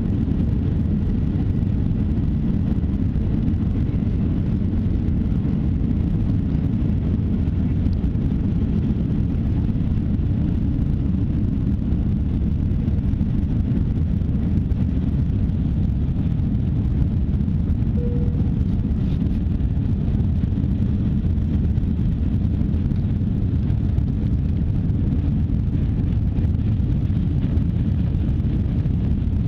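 Steady low rumble of jet engines and rushing air heard inside an airliner cabin during takeoff, even in level, with a brief faint tone about two-thirds of the way through.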